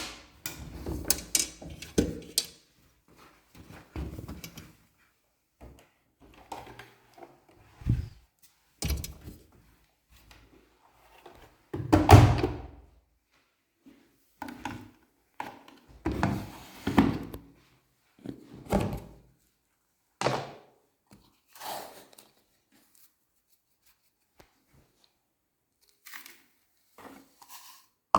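Irregular thuds and knocks with some rustling between them, from a Samsung washing machine's door being handled and laundry being loaded.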